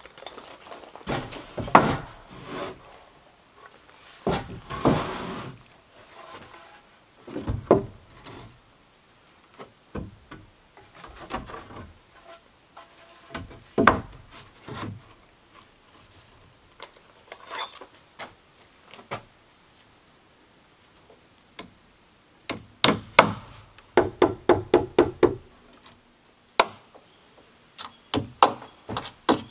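Lumber knocking and scraping as boards are handled, then a hammer driving nails into the wooden porch railing in quick runs of strikes, about four a second, in the last third.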